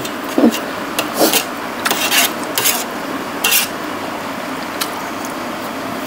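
A metal spoon stirring and scraping in a metal tray of rice noodles and sauce: several short scrapes and clinks in the first few seconds, over a steady hiss.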